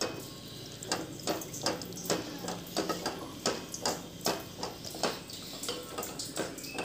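Wooden spatula stirring flattened rice in water in a steel pot, knocking and scraping against the pot about two or three times a second, with the water sloshing.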